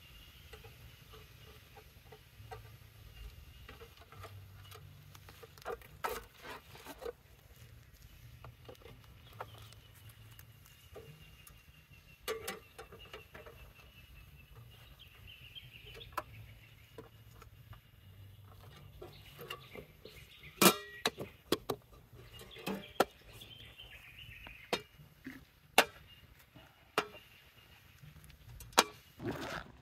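Scattered sharp clicks and knocks, irregular and thicker in the second half, the loudest about two-thirds of the way through, over a low steady hum.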